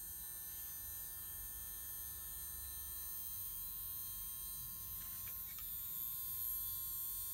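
Wahl Magic Clip cordless hair clipper's rotary motor running steadily with an intense growling hum. The owner puts the noise down to liquid getting inside and the motor shaft running dry for lack of lubrication.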